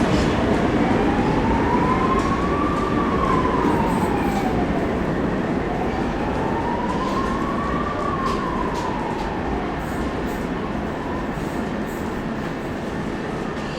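A train running past, its rumble slowly fading, while a siren wails in slow rising and falling sweeps, twice.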